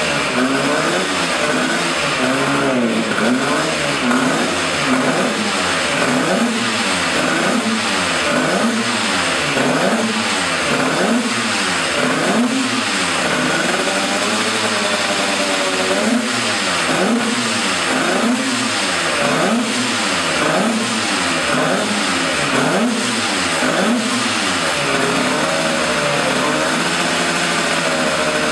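Yamaha TZ250 twin-cylinder two-stroke racing engine running on the stand and revved over and over in quick throttle blips, about one a second, the pitch rising and falling with each, settling to a steadier run near the end.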